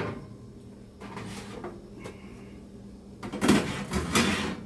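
Air fryer toaster oven running, a steady low hum from its convection fan. Two short bursts of rustling or handling noise come near the end.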